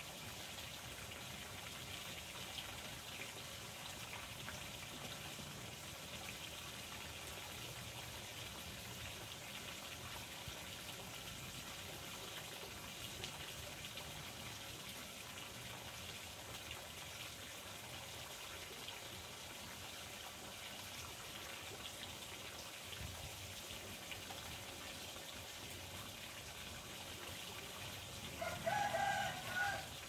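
Water trickling steadily, with a rooster crowing once near the end.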